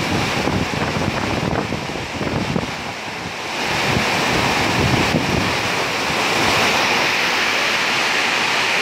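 Heavy rain pouring down onto a wet street, a loud steady rushing hiss that grows louder about three and a half seconds in.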